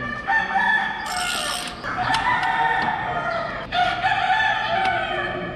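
Roosters crowing: several long, drawn-out crows, one after another.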